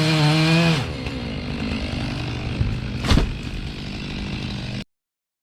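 Two-stroke chainsaw running at high revs, pitch wavering, then the throttle drops about a second in and it runs on quieter. A single sharp knock about three seconds in, and the sound cuts off abruptly near the end.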